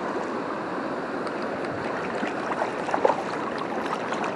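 Steady rush of flowing river water, with a few faint brief sounds about three seconds in.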